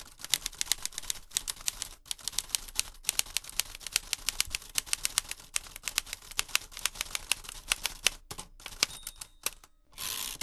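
Typewriter typing: quick mechanical key strikes, several a second, in runs with short breaks, and a brief rasping sweep near the end like a carriage return.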